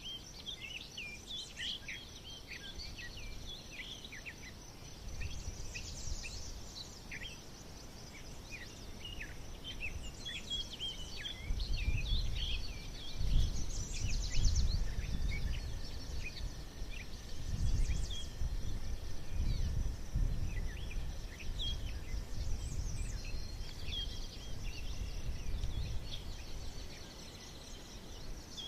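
Several small birds singing and chirping in quick, overlapping phrases over a steady high insect-like hiss. A low rumble swells through the middle and is the loudest sound there.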